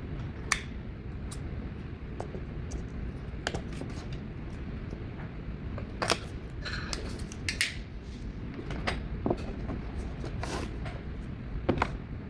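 Scattered clicks, taps and short rustles of small objects being handled, over a steady low rumble.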